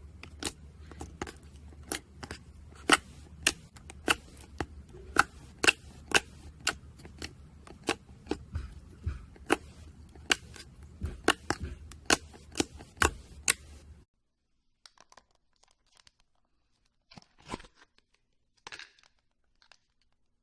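Slime being squeezed and poked, making sharp, irregular clicking pops about two a second that stop abruptly about two-thirds of the way through, followed by a few faint clicks.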